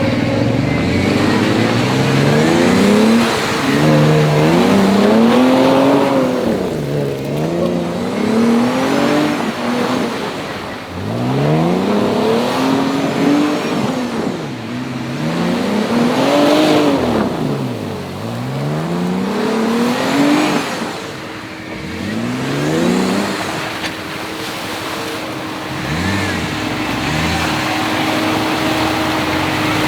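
Jeep Wrangler's engine revving up and falling back again and again, its pitch rising and dropping every couple of seconds, then holding a steadier note in the last few seconds.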